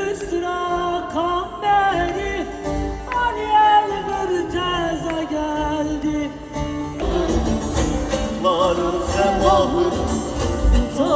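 Live Turkish folk music: a woman singing a wavering, ornamented melody with bağlama (saz) accompaniment, heard loud through a PA. About seven seconds in, the band plays fuller, with a heavier bass.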